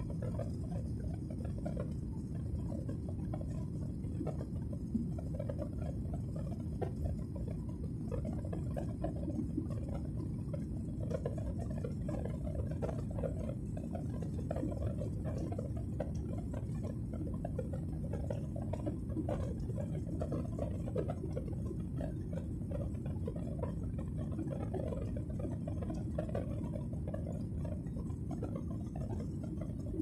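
Steady low rumble of jet airliner cabin noise in flight, from the engines and the air rushing past the fuselage, heard at a window seat. Faint scattered crackles ride on top.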